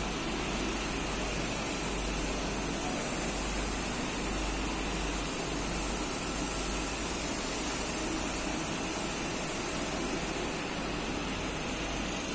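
A steady mechanical hum with hiss that does not change.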